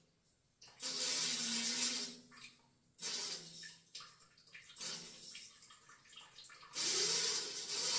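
Air and water spitting from a radiator's bleed valve into a rubber bowl in irregular hissing bursts with short gaps between: trapped air is being bled out of the radiator until only water runs.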